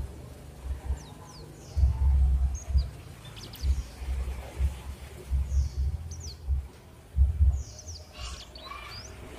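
Small birds chirping in short, quick calls, scattered throughout. Irregular low rumbling patches, the loudest sound, come and go beneath them.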